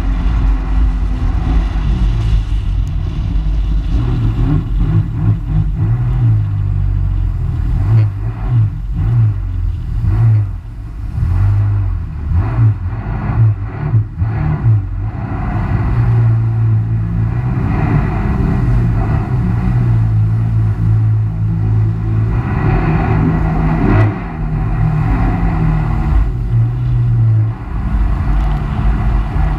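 Personal watercraft engine running at speed with water rushing and spraying against the hull. The engine note is steady for long stretches but wavers and eases off briefly in the middle as the throttle changes, then settles again.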